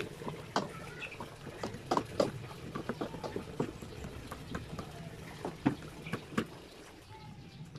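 Dishes being washed by hand in a large basin of soapy water: irregular clinks and clatters of dishware with water sloshing.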